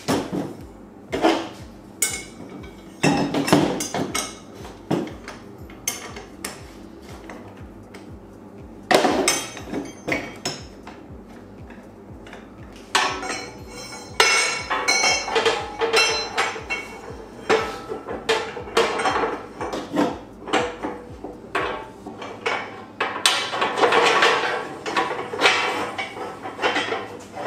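Steel tube and tube-bender clamp parts clanking and clinking as the tube is unclamped, turned over and clamped back into a manual tube bender: an irregular run of sharp metal knocks and rattles, busier in the second half.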